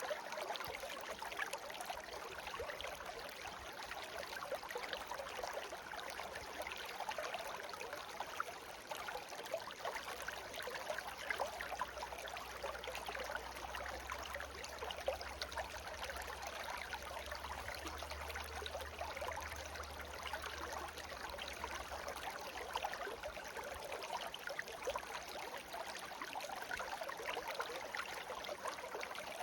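Shallow brook babbling and trickling steadily, a dense patter of small splashes and bubbles. A faint low rumble sits underneath for about the first two-thirds, strongest in the middle.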